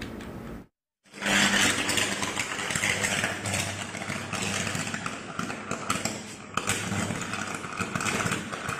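Electrical transformer short-circuiting in rainwater and burning: a loud, harsh buzzing crackle full of sharp snaps from the arcing, over a steady low hum. It starts after a brief dropout about a second in.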